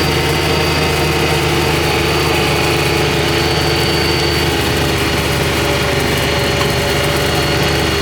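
Side-by-side UTV engine running at a steady speed, heard from the seat, its note unchanging.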